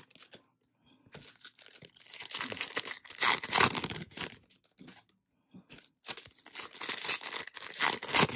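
Topps Chrome Platinum trading-card pack wrappers being torn open and crinkled by hand: two stretches of crackling rustle, the second starting about six seconds in.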